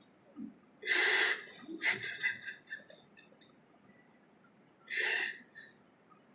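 Two sharp, loud breaths drawn close to the microphone, about four seconds apart, with fainter breathy sounds between them: a Quran reciter catching his breath in a long pause mid-verse.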